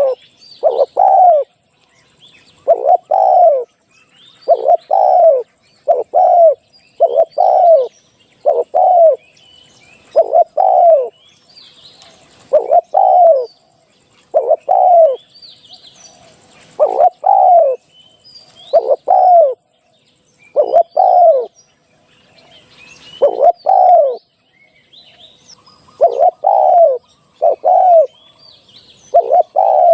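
Spotted dove cooing in repeated phrases of two or three short falling notes, one phrase every second or two. This is the kind of call used as a decoy to draw in wild doves. Faint high chirps of other small birds sound between the phrases.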